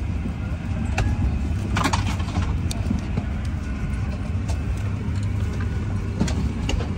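Steady low rumble inside an Airbus A350 economy cabin, with a few light clicks and paper rustles as the seat-back pocket and its leaflets are handled.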